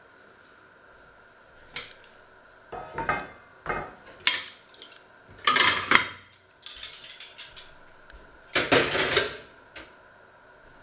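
China plates and a stainless steel pot lid clattering and clinking as they are set down and moved about on a wooden counter. A string of separate clatters, loudest about four to six seconds in and again near nine seconds.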